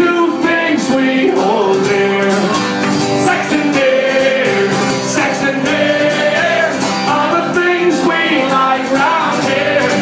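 Live acoustic guitar strumming with singing, a song performed through a PA.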